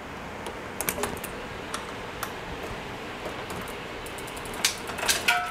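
Irregular light metallic clicks and rattles from a bicycle chain being broken with a chain breaker tool and pulled off the cassette and rear derailleur. The clicks are sparse at first, then come thicker and loudest near the end.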